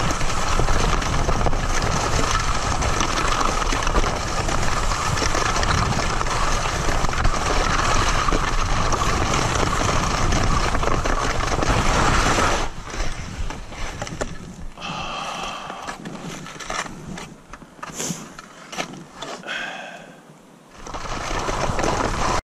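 Wind rushing over the camera microphone and skis scraping over packed snow during a fast downhill run. About halfway through the rushing drops suddenly to quieter, uneven scraping with a few brief higher tones, then the sound cuts off abruptly at the end.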